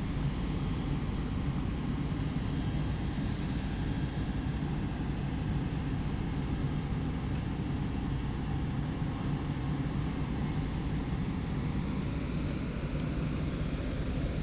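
Diesel engine of a Cat excavator fitted for the rails, running steadily: an even, low rumble.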